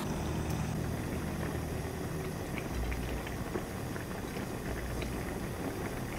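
Thick red stew sauce of dakdoritang simmering in a nonstick frying pan: a steady bubbling with small scattered pops.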